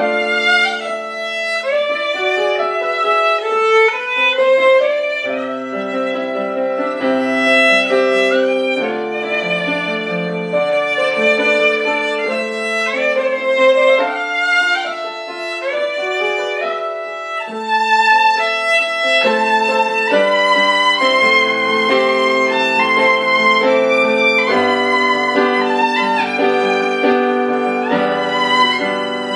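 Instrumental music: a melody of held notes over chords, changing every half second or so.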